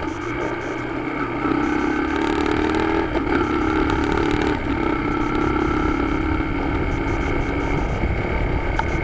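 Motorcycle engine running while riding along a road, with wind and road noise on the camera microphone. It gets louder about a second and a half in, with a brief dip in the middle.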